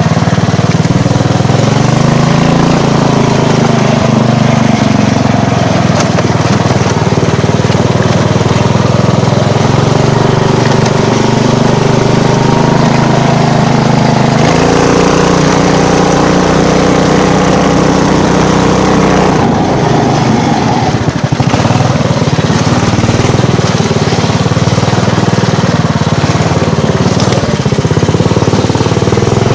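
Small off-road vehicle's engine running steadily as it is driven along a dirt trail. The engine pitch rises about halfway through and falls back a few seconds later.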